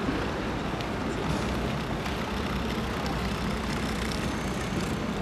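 Steady background noise of a large airport terminal hall: an even low hum with no single clear source.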